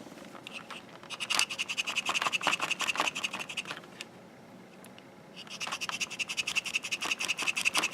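Fingernail scratching rapidly back and forth over the printed markings on a plastic precision screwdriver handle, in two bouts, testing whether the markings rub off.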